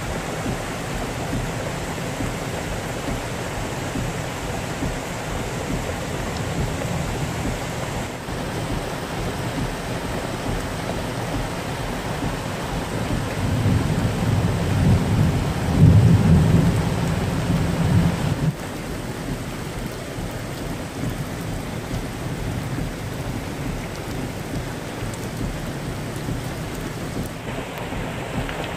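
Muddy flash-flood torrent rushing and churning over rocks, a steady loud wash of water. Past the middle a deep rumble swells up for a few seconds, then stops abruptly.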